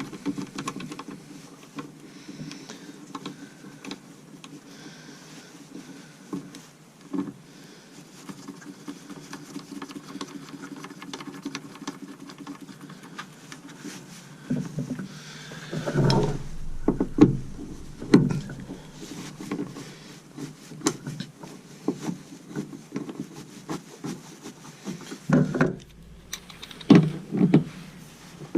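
Hand tools working on the upper mount of a VW Vanagon's seat belt height adjuster: a 17 mm socket on the mounting bolt, with a run of small clicks. A burst of louder metal knocks and clunks comes midway and again near the end as the parts are taken off and moved.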